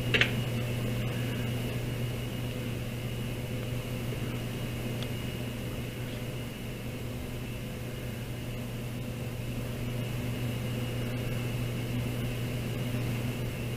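Steady hum of running computer fans, a low drone with a faint high whine above it, with a single short click right at the start.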